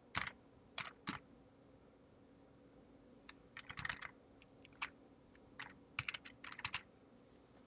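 Computer keyboard typing: a few separate keystrokes, a pause of about two seconds, then quicker runs of keys.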